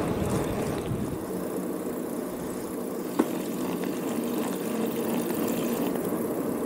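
Bicycle rolling along a road: steady tyre and wind noise with a faint low hum, and one sharp click about three seconds in.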